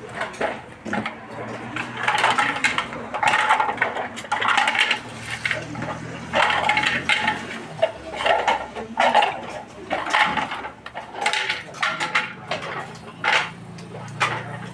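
Small hard objects clattering and clinking as they are handled and knocked together, in irregular rapid knocks.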